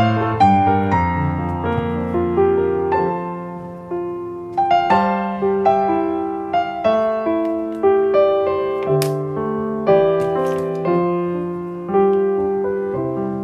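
Background piano music: a slow melody of single notes over held chords.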